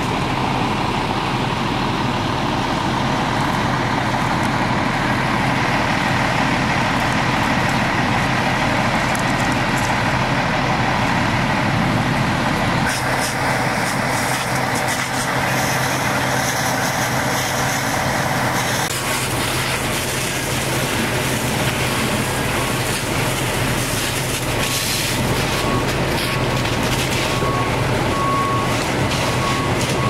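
Fire engine running steadily under a hissing hose stream. A short beep repeats near the end.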